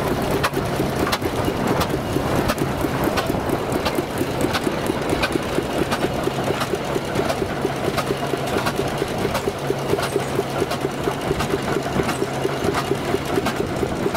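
An engine running steadily with a fast, even beat of about six strokes a second, with scattered sharp clicks over it.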